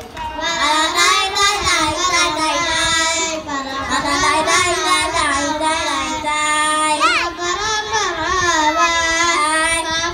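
A group of children singing together, one continuous song, with one short high-pitched sweep about seven seconds in.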